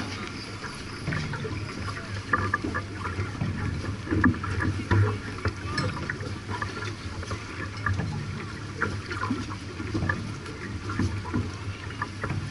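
A J/24 sailing yacht under way: wind and water rushing past the hull, with irregular small clicks and knocks throughout.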